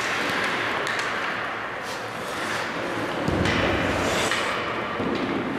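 Ice hockey rink sound: skates scraping and gliding on the ice, with scattered knocks and taps of sticks and pucks on the ice and boards.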